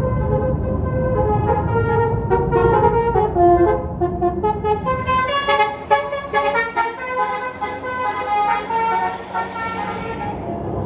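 Tour bus's Basuri multi-tone telolet horn playing a melody of stepped notes over the bus's engine rumble. The horn stops shortly before the end.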